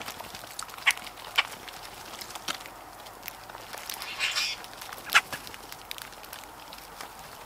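A flock of common grackles feeding on the ground with a blue jay: a few sharp clicks at irregular intervals, and a brief harsh, scratchy sound about four seconds in.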